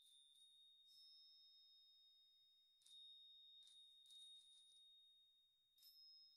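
Near silence, broken by faint, high, pure ringing tones that start with a tiny click and ring on for a second or two. They come in several times, about a second apart, at two or three fixed pitches.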